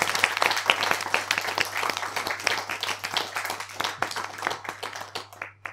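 Applause: a dense patter of clapping that fades out near the end, over a faint steady low hum.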